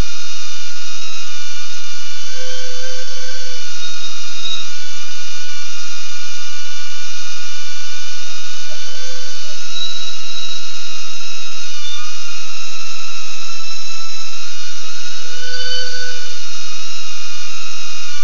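BetaFPV Aquila16 FPV quadcopter's motors and propellers whining steadily, the pitch wavering slightly every few seconds as the throttle shifts.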